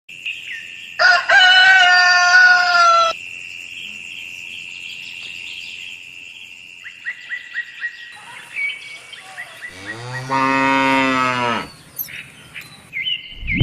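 Cattle lowing: a higher-pitched call about a second in, then a long low moo about ten seconds in. Faint bird chirps and a steady high tone sound in the background.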